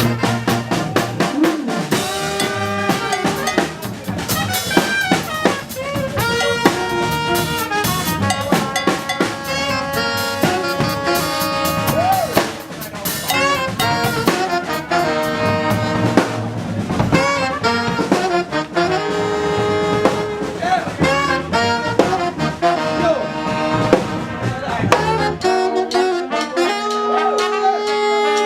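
A live New Orleans-style funk brass band playing: saxophone, trombones and other horns holding and punching riffs over a driving drum kit. About three seconds before the end the drums drop out and the horns hold chords on their own.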